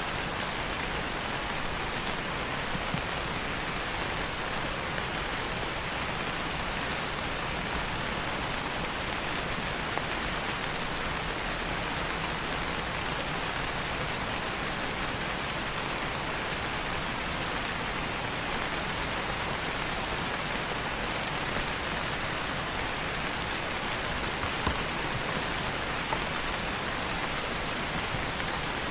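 Steady rain falling: an even, unbroken hiss, with a few slightly louder single drop ticks.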